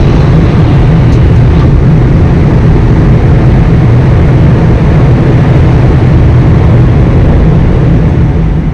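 Boeing 787 Dreamliner flight-deck noise during the initial climb just after takeoff: a loud, steady low rumble of airflow and engines. It fades out near the end.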